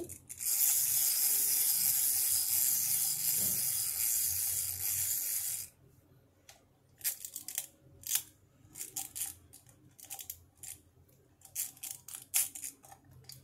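A small toy mechanism whirring steadily for about five seconds, then stopping suddenly, followed by scattered light clicks of plastic toys handled on a tile floor.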